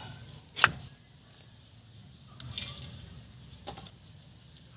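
A single sharp knock about half a second in, then a brief faint hiss and a fainter tick.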